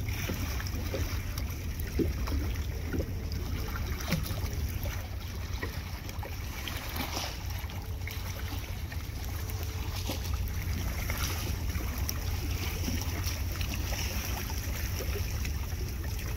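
Wind buffeting the microphone with a steady low rumble, and water lapping around a floating kayak with a few light knocks.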